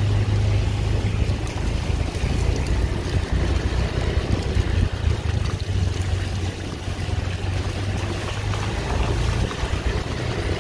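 A vehicle engine running with a steady low drone, with wind rushing over the microphone as it travels.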